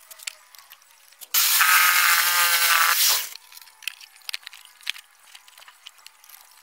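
Benz Werks 8089 jigsaw running for about two seconds, a loud whine over sawing noise as it cuts wood. Before and after it, light knocks of wooden blocks being handled on the plywood.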